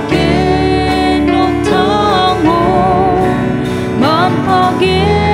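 A man and a woman singing a Garo-language hymn together, to a strummed acoustic guitar.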